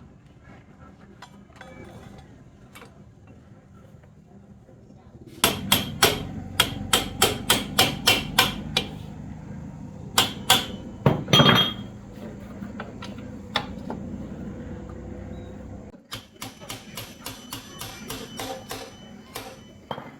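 Hammer striking metal in quick runs of blows, about three a second, starting about five seconds in; after a pause come a few heavier blows, then a run of lighter, quicker strikes near the end. A steady low hum runs under the first blows and stops about sixteen seconds in.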